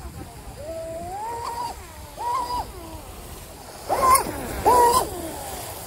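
RC speedboat's electric motor whining at speed. Its pitch rises and falls several times as the throttle is worked through the turns, over the hiss of spray and water.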